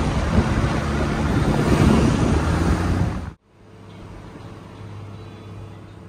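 A car driving on a wet road, heard from inside: loud rushing wind and tyre noise, cutting off abruptly about three seconds in to a quieter cabin noise with a steady low engine hum.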